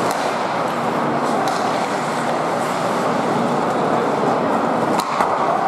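Steady noise of an ice hockey game in an arena: skates on the ice and crowd murmur, with a sharp crack about five seconds in.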